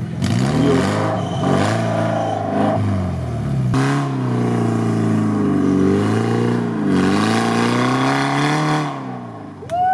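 Off-road 4x4's engine revving hard and unevenly, its pitch rising and falling again and again as the wheels spin through mud and water climbing out of a stream crossing, with splashing and clatter mixed in. It eases off near the end.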